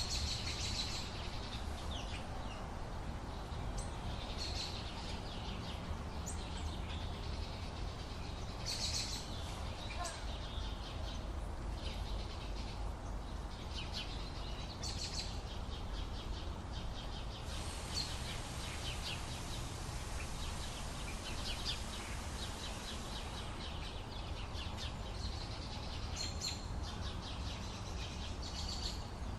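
Many small birds chirping and singing in an early-morning chorus, short calls and trills coming and going in bursts, over a steady low rumble of background noise.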